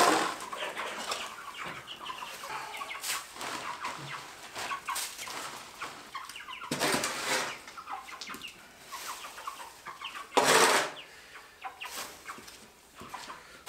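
Cornish cross meat chickens clucking while a shovel scrapes and scoops soiled wood-chip bedding off a dirt floor. There are three loud scrapes, at the start, about seven seconds in and about ten and a half seconds in, and the last is the loudest.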